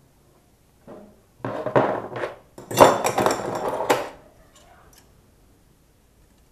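Metal hand tools and aluminum tubing clattering and clinking as they are handled and set down on a workbench, in two bursts: a shorter one about a second and a half in and a louder, denser one from about three seconds to four seconds, then a few faint clicks.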